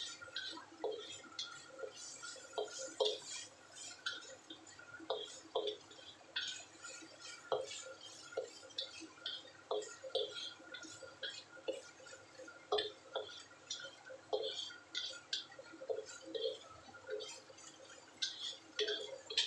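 A spatula scraping and knocking against a black wok while stir-frying diced onion, tomato and green chilli, with irregular clacks every second or so over a light sizzle.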